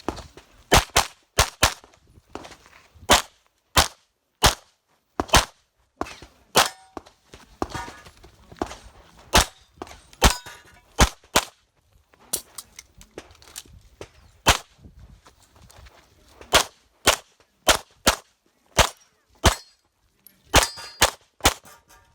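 Rapid 9mm pistol shots fired through an IPSC stage, many in quick pairs, with gaps of a second or so between groups.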